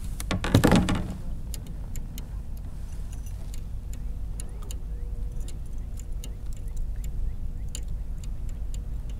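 Fishing tackle being worked while a hooked bass is reeled in to a kayak: scattered light clicks and ticks over a low steady rumble, with a brief louder rush about half a second in.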